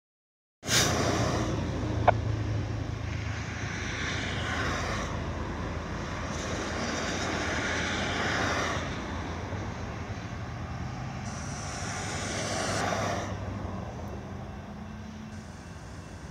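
Empty intermodal well cars of a freight train rolling past close by: a steady rumble with the rushing rail noise of steel wheels on the track. It starts abruptly about half a second in, with one sharp click soon after.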